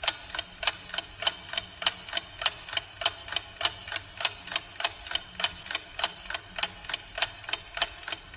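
Clock ticking as a thinking-time sound effect: steady, evenly spaced ticks, about three a second.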